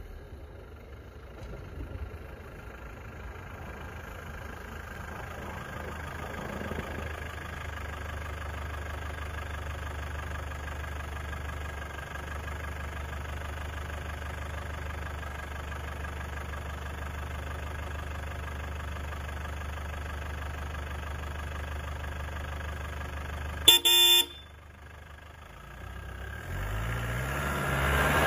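Land Rover Defender 200Tdi 2.5-litre four-cylinder turbo-diesel running steadily, a brief loud horn toot about three-quarters of the way in, then the engine note rising as it pulls away.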